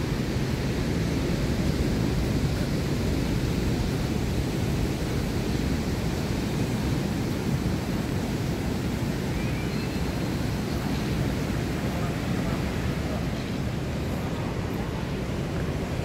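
Steady rushing of ocean surf mixed with wind buffeting the microphone.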